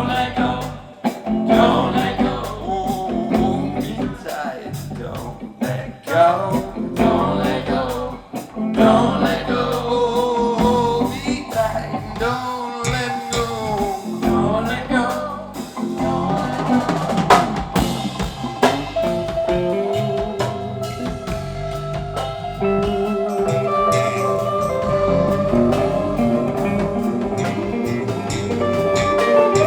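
Live band playing an instrumental passage with no singing: drum kit with rimshots, bass and guitar. The guitar line bends up and down in pitch through the middle, then settles into held notes.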